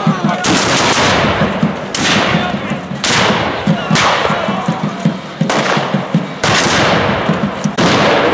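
Black-powder flintlock muskets firing in a ragged series: about seven loud shots, one every second or so, each followed by a long echoing tail.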